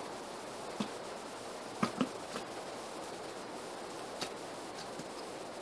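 Plastic ketchup bottle being squeezed upside down into a measuring cup: a handful of short clicks and squelches, bunched around two seconds in, over a steady faint hiss.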